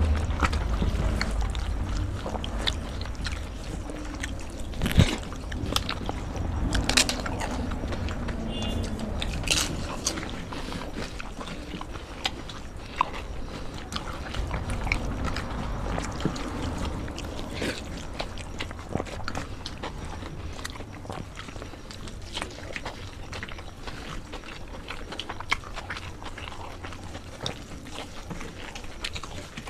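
Two people eating by hand, chewing and biting. The sound is a dense run of small clicks with a few sharper cracks, over a low rumble in the first couple of seconds.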